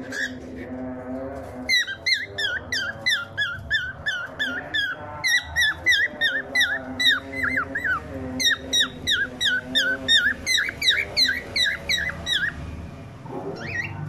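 Male cockatiel chirping and whistling in a fast run of short, bent notes, about three or four a second, starting about two seconds in and stopping near the end.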